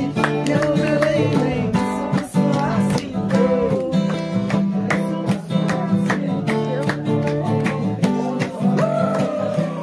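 Acoustic guitar strummed in steady chords, with a voice singing a melody over it.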